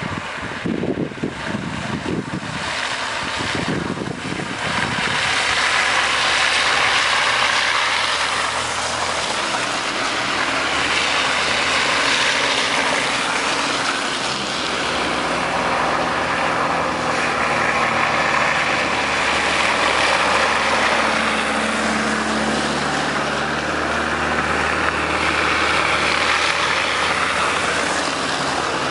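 A convoy of four-wheel-drive vehicles, Toyota Land Cruisers among them, driving slowly one after another along a muddy track, the engines running steadily as they pass. The sound grows louder over the first few seconds, then holds.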